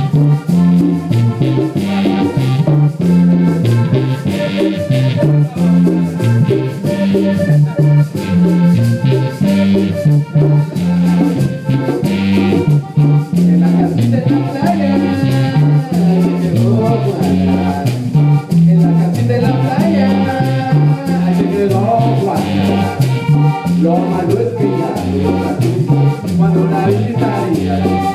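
Live band playing upbeat dance music: a repeating bass line under keyboard and percussion, with a shaker keeping time, and a wavering melody line over it in the second half.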